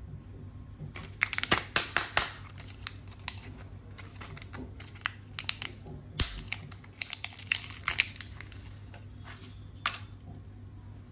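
Packaging being handled: irregular crinkling and crackling with sharp clicks, in clusters from about a second in until near the end.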